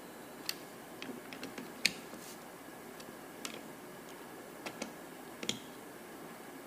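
Scattered light clicks and taps of hand tools and small metal carburetor parts being handled on a workbench.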